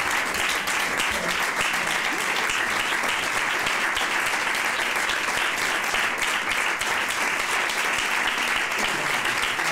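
Audience applauding steadily, a dense, even clapping that holds throughout, at the curtain call.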